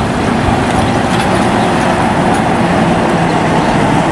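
High-deck coach bus driving past, its engine and tyre noise loud and steady.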